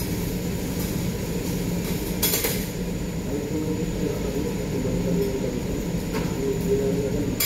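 Steady low rumble of a busy teppanyaki grill, with clinks of metal utensils and one louder clatter a little over two seconds in.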